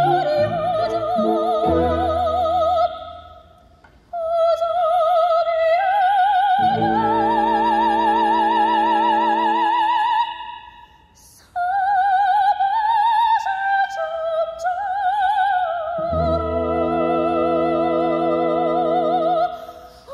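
Operatic soprano singing long held phrases with a wide, fast vibrato, some phrases unaccompanied and others over sustained orchestral chords, with two brief pauses between phrases.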